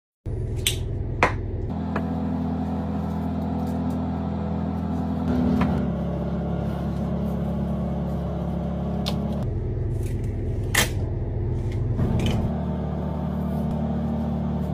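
Steady low mechanical hum whose pitch shifts abruptly a few times, with several sharp clicks and taps from tools being handled on the bench.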